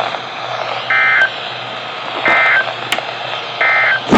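EAS/SAME end-of-message data tones from a NOAA Weather Radio: three short, identical bursts of warbling two-pitch digital tone about a second and a half apart, marking the end of the severe thunderstorm warning. A steady radio hiss underlies them.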